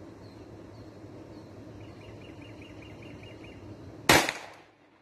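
A single shot from a Glock 44 .22 LR pistol firing a CCI Mini-Mag 36-grain copper hollow point: one sharp crack about four seconds in.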